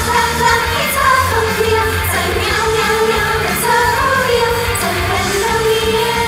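Idol-pop song performed live: female vocals sung into handheld microphones over loud pop music.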